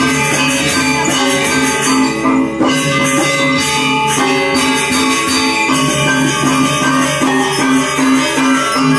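Balinese gamelan music of the kind that accompanies the Barong dance: metallophones and gongs ringing in dense interlocking figures over a steadily repeated low note.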